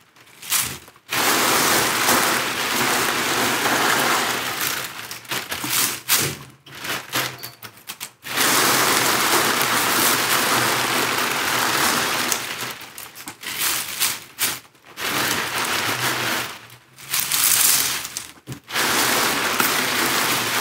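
Large plastic bag crinkling, with dry white sage leaves and stems rustling, as the plant material is pulled out by hand and packed into a perforated metal still basket. The crinkling runs in long stretches broken by a few short pauses.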